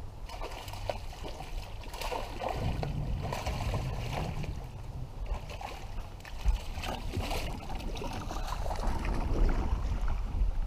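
Wind buffeting the microphone and small waves lapping against a boat's hull, with a few light knocks.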